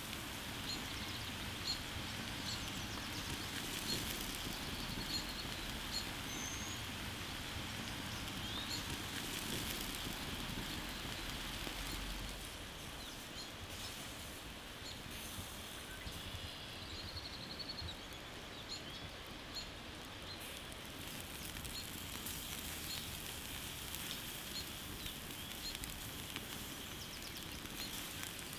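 Outdoor ambience over a bed of charcoal embers: scattered small crackles and clicks from the coals under a spit-roasting pig, with small bird chirps over a steady hiss. The overall sound drops slightly about twelve seconds in.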